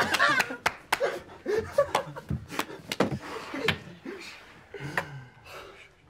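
Several young men snickering and chuckling under their breath, in short fits, trying to hold in their laughter, with a number of sharp clicks in between.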